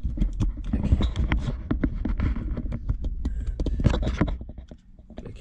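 Close handling noise: clicks, knocks and rustling from power cables and a clear plastic inline fuse holder being handled near the microphone, over a low rumble. It quietens about a second before the end.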